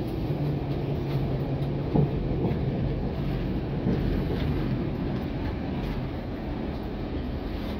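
Interior noise of a NABI 416.15-40SFW transit bus running: a steady engine and road rumble, with a low drone in the first two seconds and a single sharp knock about two seconds in.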